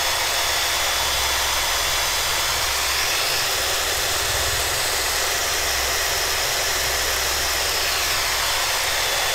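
Cordless drill running steadily at full speed, spinning an unpowered brushless RC motor clamped in its chuck, with a thin steady high whine over the drone.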